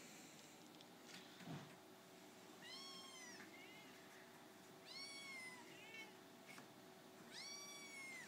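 Kittens mewing: three high-pitched mews, each rising then falling in pitch, the last one the longest, with short quieter chirps after the first two.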